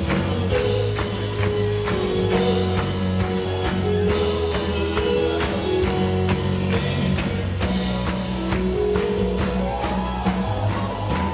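Live band playing with a drum kit keeping a steady beat of about four strokes a second under keyboard and a held melody line.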